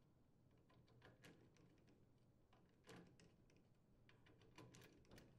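Near silence, with a few faint clicks as a screwdriver loosens the thermostat wire terminal screws on a furnace control board and the wires are drawn off.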